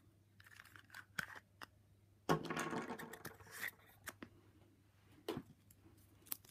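Plastic Kinder Surprise capsule and its small toy parts being handled: scattered light clicks, with a rustle lasting more than a second about two seconds in and a couple more clicks near the end.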